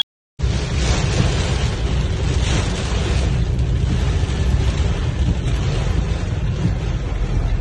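Strong wind buffeting the microphone: a steady low rumble with a hiss above it, starting just after a brief cut to silence.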